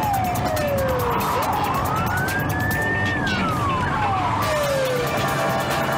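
Police car siren on slow wail: it falls at the start, rises over about two seconds, holds briefly and falls again over about two seconds. Car engine and road noise run underneath.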